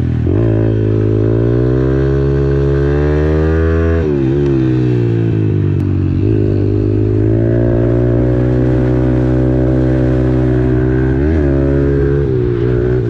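Kawasaki KLX110 pit bike's single-cylinder four-stroke engine under riding load, revving up through a gear. The pitch climbs for about four seconds, drops at a gear change, then pulls steadily, with another quick dip about eleven seconds in.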